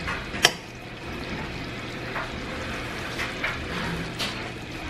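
Meatballs in tomato sauce boiling in a stainless steel pan: a steady bubbling hiss with scattered small pops. A single sharp click about half a second in.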